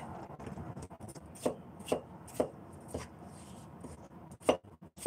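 Chinese cleaver slicing celtuce stems on a cutting board: a series of knocks of the blade meeting the board, the louder strokes about half a second apart, with lighter quick taps between them.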